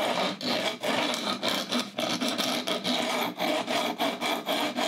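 Fret-end bevel file held in a wooden jig, rubbed back and forth along the edge of a guitar fingerboard, filing an angle onto the ends of the fret wire: a run of quick, repeated rasping strokes.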